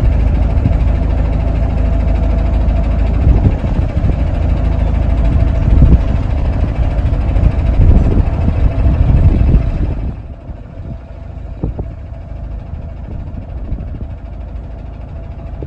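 Narrowboat bow thruster running, a loud steady rumble pushing the bow round against the wind. It cuts out about ten seconds in, leaving the boat's engine running more quietly.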